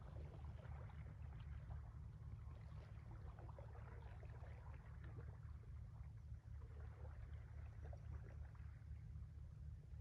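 Calm sea lapping gently at the shore in small, irregular splashes, over a steady low rumble.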